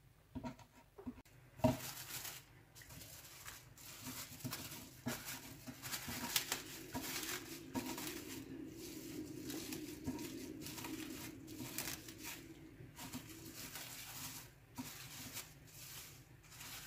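Plastic cling film crinkling and rustling in quick, irregular crackles as it is rolled tightly around a rolled chicken breast on a wooden board, with a sharp tap about a second and a half in.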